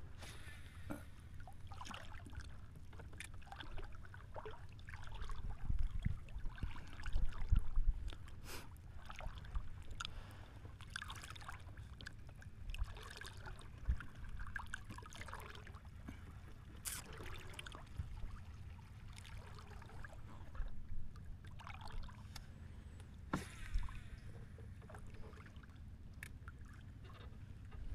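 Quiet sounds from a small wooden fishing boat on calm water: a low steady rumble with scattered knocks and light clicks as the angler moves, casts and reels, and a louder stretch of handling noise a few seconds in.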